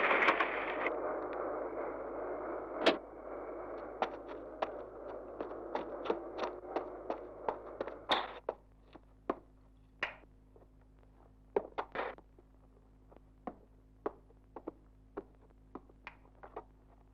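Car running, its engine and road noise thinning after the first second and gone about eight seconds in. Sharp taps and knocks run through it, then come singly, roughly a second apart, over a faint steady hum.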